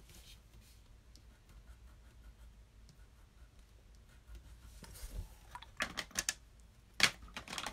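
Faint scratching of a marker coloring on paper, then a few sharp taps and knocks in the last three seconds, the loudest near the end, from a hand reaching to touch the recording device.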